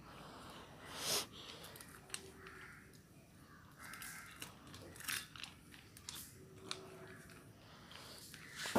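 A dog eating dry kibble from a steel bowl: faint crunching and chewing with scattered small clicks, and a sharper knock near the end.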